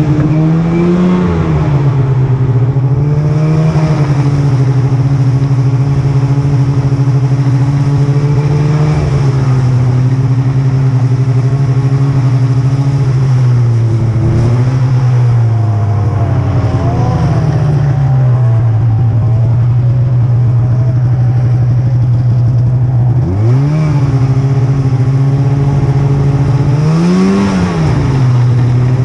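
Snowmobile engine running at low speed, its pitch rising and falling gently with the throttle, with two short revs about five and one and a half seconds before the end.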